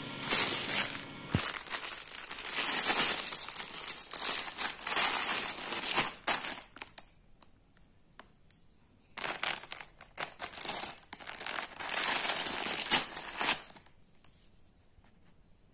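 Clear plastic packaging crinkling as it is handled, in two stretches, about seven seconds and then about five seconds, with a short quiet pause between them.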